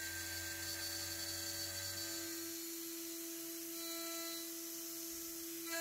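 Mechatron automatic-toolchanger CNC spindle running with a steady whine while an end mill cuts a pocket in steel at a light 1 mm optimal load. A low hum drops away about two and a half seconds in.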